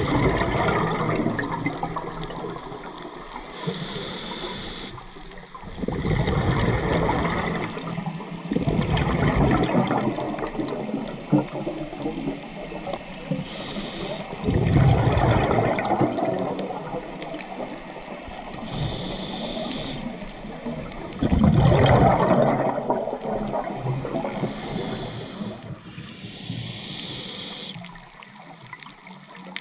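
Scuba regulator breathing underwater: short high hissing inhales through the regulator, each followed by a loud gurgling rush of exhaled bubbles, repeating every several seconds.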